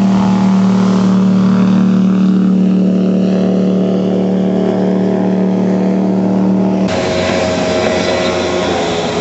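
Jet boat engine running hard at a steady high note as the boat speeds across the water, with the hiss of its spray. About seven seconds in the sound changes suddenly to a second jet boat, noisier and with more water hiss.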